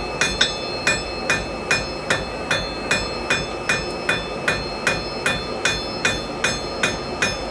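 Blacksmith's hammer striking hot iron on an anvil in a steady rhythm, nearly three blows a second, each blow ringing. This is the smith refining and texturing the bar while it is hot enough to work.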